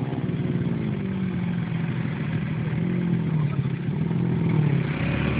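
Small motorcycle engines running steadily at road speed as two bikes ride side by side, the engine pitch wavering slightly, over wind and road noise.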